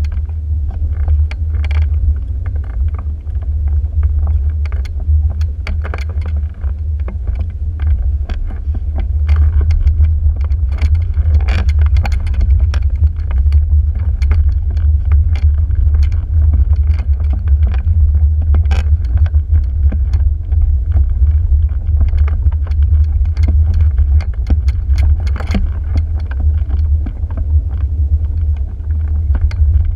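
Steady low rumble of wind on the microphone, with irregular clicks and rattles from the microlight trike's frame as it is moved by hand along the tarmac on its punctured nosewheel tyre, engine stopped.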